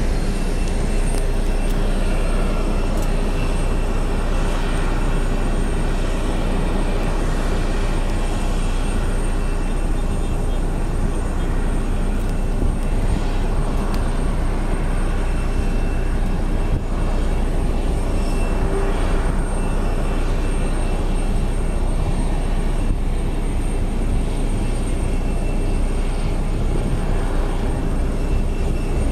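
Jet airliner's engines running at idle: a steady rush with a thin high whine over it, unchanging throughout.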